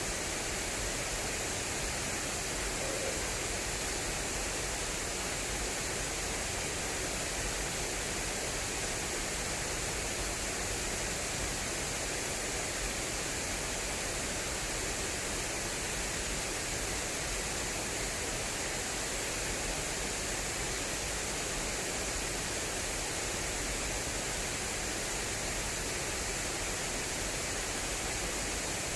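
Water rushing swiftly along an irrigation channel, a steady, unbroken rush.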